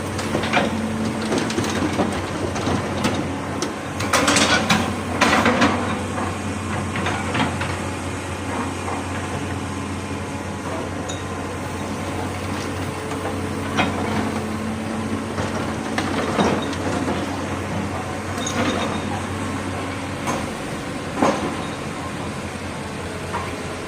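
A diesel excavator's engine running steadily, with irregular metallic clanks and scrapes as it digs, the loudest a cluster about four to five seconds in.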